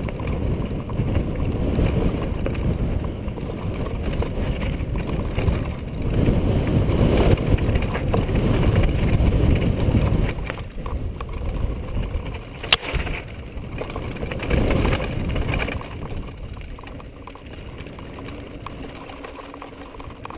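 Mountain bike rolling fast down a rocky, gravelly trail: steady rumble of the tyres over loose stone and rattling of the bike, loudest from about six to ten seconds in, with a single sharp knock about twelve seconds in, then quieter near the end.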